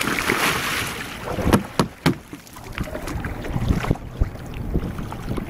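Splash of a sea kayak capsizing, then three quick sharp knocks on the upturned hull from underneath, about a quarter second apart: the capsized paddler's signal asking for a bow rescue. Water slops around the boats afterwards.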